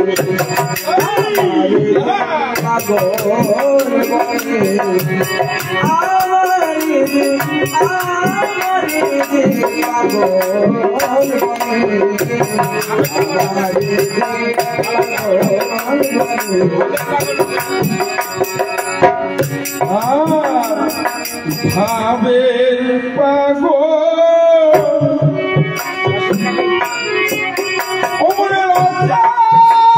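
Man singing a Bengali devotional folk song into a microphone, accompanied by harmonium chords and a steady percussion beat.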